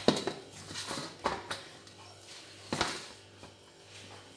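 Hands kneading a stiff flour-and-semolina dough in a steel bowl: a few irregular soft slaps and knocks of dough and knuckles against the metal, the loudest at the start and a little before three seconds in.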